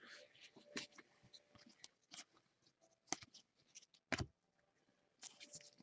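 Faint handling of trading cards being flipped and sorted: a few soft clicks and rustles, the clearest about three seconds in and just past four seconds.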